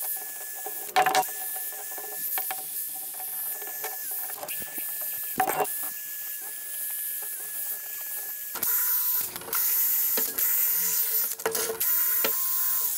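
Cordless drill running with a wire brush scrubbing rust off the cast-iron base of an antique screw jack: a steady motor whine over a scratchy hiss, with short breaks and a few sharp knocks of metal on metal. About eight and a half seconds in, the pitch changes and the sound grows louder.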